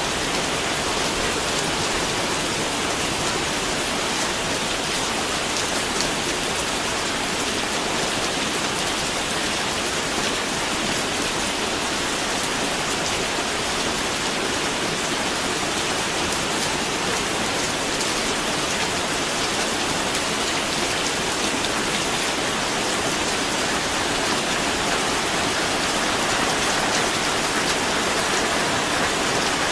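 Steady rain falling, a continuous even hiss with faint patter of drops and no breaks.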